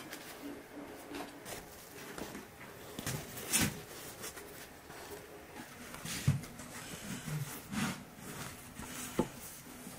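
Scattered soft handling sounds of dishes and food: rustles, light knocks and a few clinks of a spoon against plates and bowls, with one sharp click near the end.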